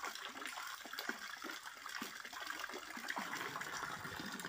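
Steady sound of running water, a continuous rushing hiss with small splashes and crackles in it.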